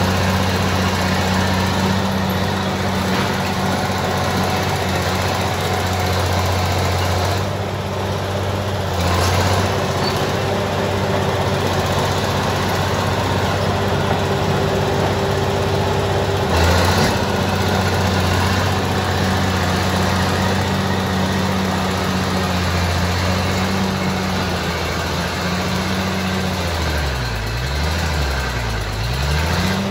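Crawler bulldozer's diesel engine running hard while clearing brush, steady and loud. There is a single sharp knock about seventeen seconds in, and near the end the engine speed dips and recovers twice.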